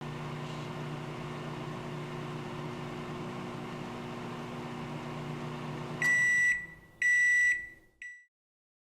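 Microwave oven running with a steady hum for about six seconds, then stopping and giving three high beeps about a second apart, the last one short, signalling the end of the cooking cycle.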